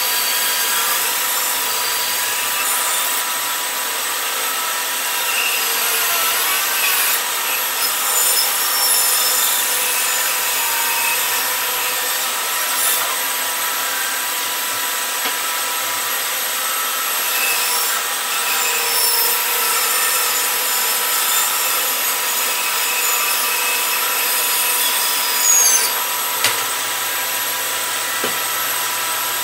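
Bandsaw running with a steady whine, its blade cutting through a wooden guitar body blank.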